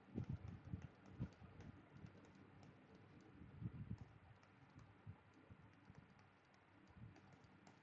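Faint, irregular tapping and clicking of a stylus writing on a tablet screen, over near-silent room tone.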